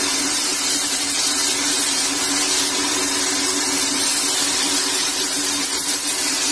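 Motor-driven grinding wheel grinding a long steel bar, throwing sparks: a steady hiss of metal on the abrasive wheel over the motor's steady hum.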